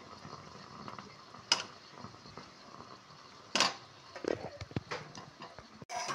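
A steel spoon clinking against a steel kadhai as boiled amla are slid into sugar syrup. There are two sharp clinks, about a second and a half and three and a half seconds in, then a few lighter taps, over a faint steady hiss.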